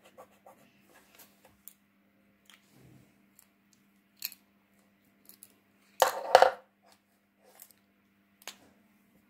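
A marker tip scratching briefly on paper at the start, then light clicks of plastic paint markers being capped and handled. About six seconds in comes a short, loud clatter of several hard plastic knocks as markers are put down and picked up.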